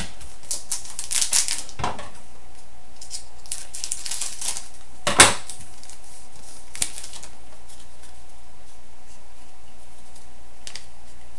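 Hockey trading cards being handled by hand: short paper rustles and clicks as cards slide over one another, with one sharper swish about five seconds in, then only a steady hiss.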